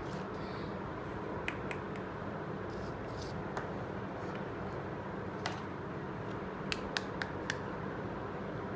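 Small sharp clicks and light taps from handling miniature steel toy kitchen pieces, scattered at first, then four in quick succession near the end, over a steady background hum.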